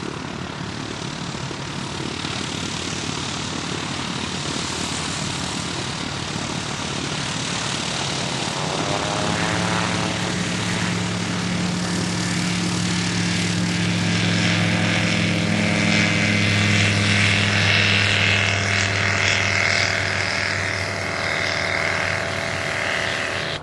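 Elitar Sigma light-sport aircraft's propeller engine running. At first it is a rushing noise; about nine seconds in, a steady engine drone comes through and grows louder, peaking around two-thirds of the way in.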